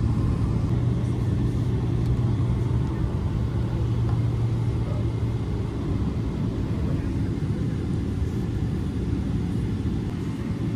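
Steady low cabin rumble inside a Boeing 777 on the ground before takeoff: engines and air conditioning running, with a low hum that fades out about halfway through.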